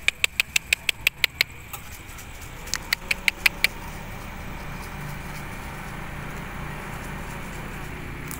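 Two quick runs of sharp mouth clicks, about six a second, made to call street cats to their food. Under them a steady low engine hum of motor traffic.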